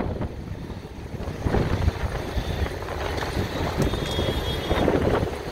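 Semi-truck cab fire burning, a steady low roar with scattered pops and crackles.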